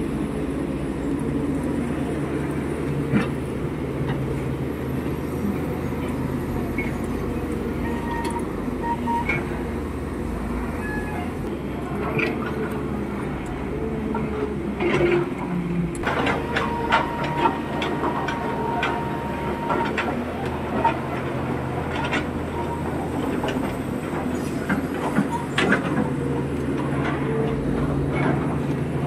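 Hyundai crawler excavator's diesel engine running steadily while it digs. Scattered knocks and scrapes of the bucket against soil and stones come mostly in the second half.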